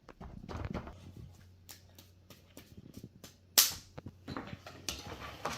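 Digging tools scraping and tapping in kinetic sand and its containers: a dense run of small clicks and scrapes, with one sharp knock about three and a half seconds in.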